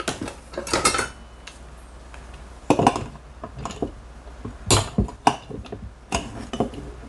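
A jar opener clinking and knocking against the metal lid of a home-canned pint jar of ham in a string of sharp, irregularly spaced clicks, as a tight lid is worked loose.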